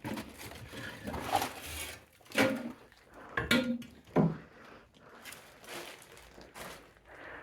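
Irregular knocks, clicks and clatter of hard objects being moved and handled in a small room, with a few short muffled voice sounds among them.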